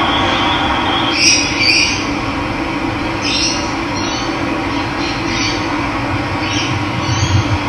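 Steady rush of running water, with short bird chirps breaking in several times over it from about a second in.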